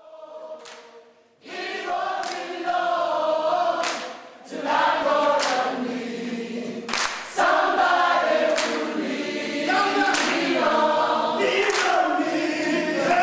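A choir singing, many voices together; after a brief first note and a short pause, the singing comes in fully about a second and a half in.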